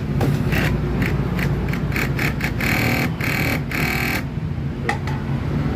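C&M four-thread direct-drive servo overlock machine (serger) stitching in a string of short bursts. It then makes two longer runs near the middle and one brief burst late on, over a steady low hum.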